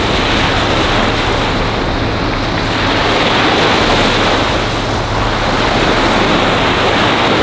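Small sea waves breaking and washing in the shallows: a loud, steady rushing that swells a little about two seconds in and again near five seconds.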